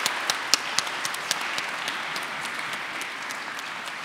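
Audience applauding, with individual claps standing out, gradually dying away toward the end.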